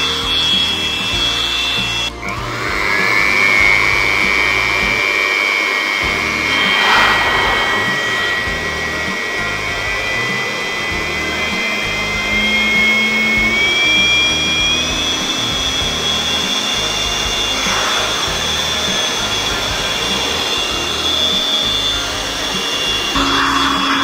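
Stanley STPT600 600 W electric blower running continuously, a rush of air with a steady high motor whine whose pitch drifts slowly and shifts partway through.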